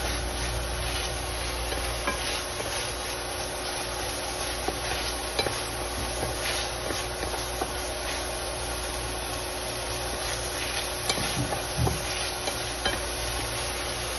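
Diced carrots and peas sizzling in hot oil in a frying pan, stirred with a wooden spatula that now and then knocks and scrapes against the pan.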